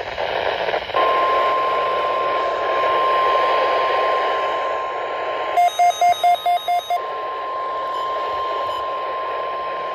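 NOAA Weather Radio's 1050 Hz warning alarm tone, one steady high tone over radio static, starting about a second in; the tone signals that a weather warning is about to be broadcast. Partway through, a weather radio receiver adds a quick run of about seven sharp alert beeps.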